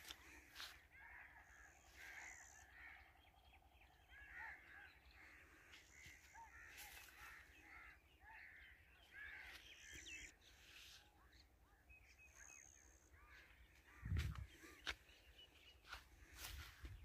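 Birds calling faintly, many short chirps overlapping and repeating. There are scattered light footsteps on a dirt path, and a louder low thump about fourteen seconds in.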